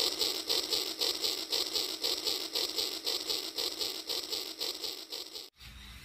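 Battery-powered toy train set running on plastic track, a steady rhythmic clicking and rattling at about three to four beats a second from the locomotive's motor and wheels. It stops abruptly near the end.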